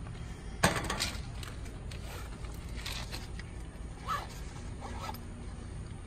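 Handling noises from work on an air-conditioner capacitor and its wiring: a sharp click about two-thirds of a second in, then scattered light clicks and scrapes.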